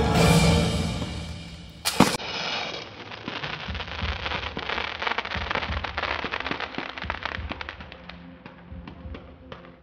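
Fireworks over a soundtrack: music fading out over the first second or two, then one loud bang about two seconds in. Several seconds of dense, rapid crackling follow, thinning out to a few last pops near the end.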